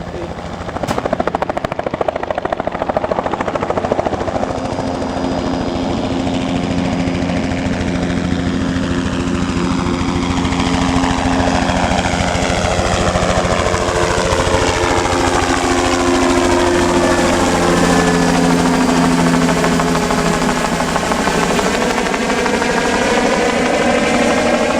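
Bell 206 JetRanger helicopter taking off: its turbine and rotor run loud and steady, swelling about a second in. The tone sweeps down and back up as the helicopter lifts and moves.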